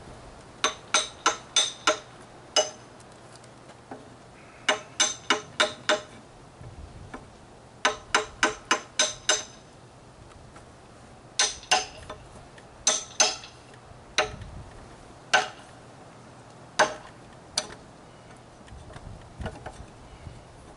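Hammer striking a 2-inch wood chisel, chopping waste out of a notch in a pressure-treated yellow pine beam. Quick runs of about five sharp taps, then slower single taps a second or more apart.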